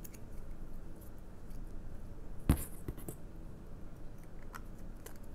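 Small handling noises from a clear green glitter slime ball and its clear plastic case. There is one sharp plastic click about halfway through, a smaller one just after, and a few faint ticks near the end.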